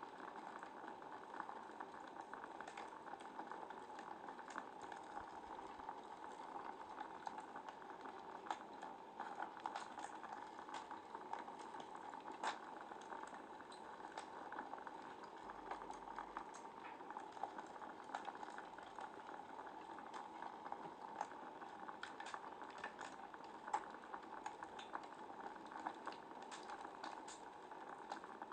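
Wood fire crackling in a fireplace: a steady hiss of flames with frequent small crackles and a couple of louder pops.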